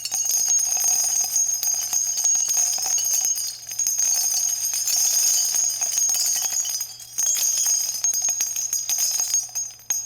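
Falling-crystals sound effect: a dense, continuous shower of high, tinkling, bell-like chimes, with brief dips twice and a fade-out starting near the end.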